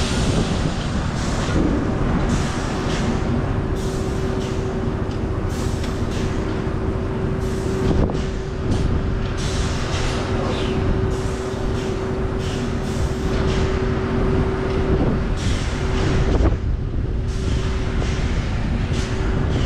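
End dump truck unloading gravel through its swing gate: the truck runs with a steady whine under a low rumble, with the rush and crackle of gravel sliding out of the raised trailer.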